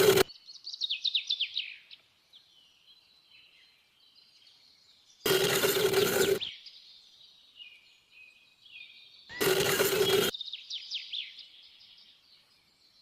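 Small birds chirping with quick falling twitters. Three times a loud burst of noise with a low hum, each about a second long, cuts across them: near the start, about five seconds in and about nine seconds in.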